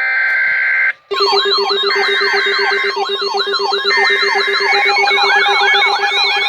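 Electronic emergency alert tones: a steady two-note tone for about a second, then after a brief break several siren-like tones sweeping up and down about twice a second, overlapping one another, with steady beeps over them.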